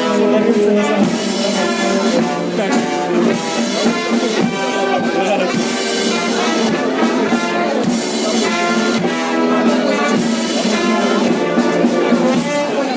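Brass band playing, with brass instruments carrying the tune.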